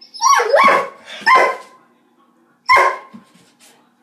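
Doberman barking: four loud barks, three in quick succession and one more after a pause of about a second.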